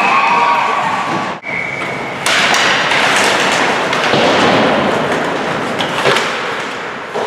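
Ice hockey play on a rink: a steady hiss of skates and arena noise, broken by several sharp knocks of sticks, puck and boards, two of them close together near the end. A short steady tone sounds for about a second near the start.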